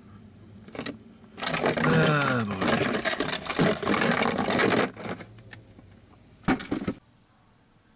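Hot water being poured into a plastic soda bottle for about three seconds, starting about a second and a half in. A short, sharp knock follows near the end.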